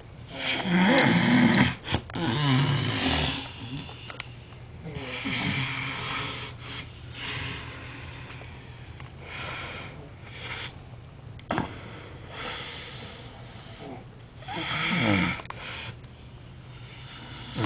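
A man snoring heavily, with loud rasping snores that come and go: the biggest one is at the start and another loud one comes near the end, with softer snoring breaths in between.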